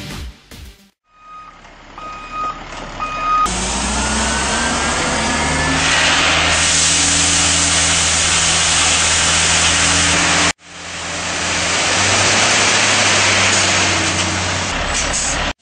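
A truck's reversing alarm giving a few short beeps, then a heavy truck engine running steadily with a loud hiss over it. The sound cuts off abruptly about ten seconds in and starts again.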